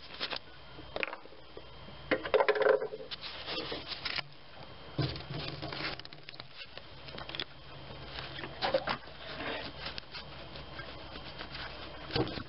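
Gloved hands working a rubber vacuum hose off the brake booster fitting: irregular rubbing and scraping, louder about two seconds in.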